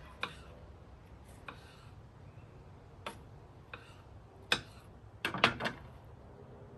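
Kitchen knife slicing red bell pepper and knocking on a wooden cutting board: single sharp knocks at uneven intervals, then a quick run of three louder ones about five seconds in.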